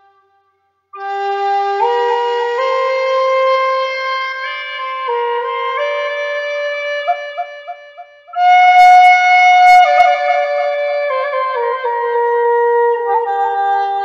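Native American flute playing a slow solo melody. After about a second of silence it holds long notes that climb step by step, with a few quick grace-note flicks about seven seconds in. A louder high note comes at about eight and a half seconds, and the line then steps back down to the low starting note.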